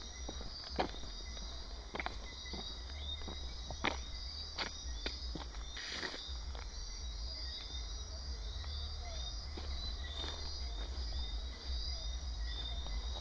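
Night insects, crickets among them, chirping in a steady chorus of rapid repeated high chirps, over a low rumble, with a few sharp clicks.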